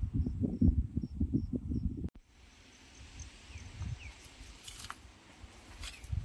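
Insect chirping in an even rhythm, about three short high chirps a second, over irregular low rumbling. About two seconds in it all cuts off abruptly, leaving quieter outdoor ambience with a few faint chirps and light clicks.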